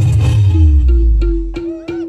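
A band's music playing loud: a deep bass note holds and cuts out about three quarters in, under a steady repeated higher note, with a few sharp hits near the end.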